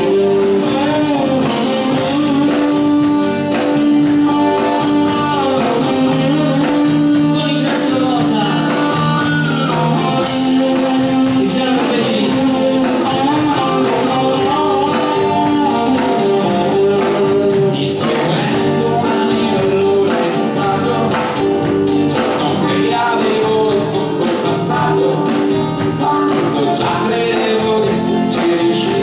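Live band playing dance music: drums, acoustic and electric guitars, bass guitar and keyboards, with a lead vocal over it.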